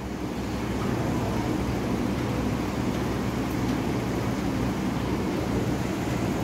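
Steady low hum with an even rushing noise underneath, unchanging throughout.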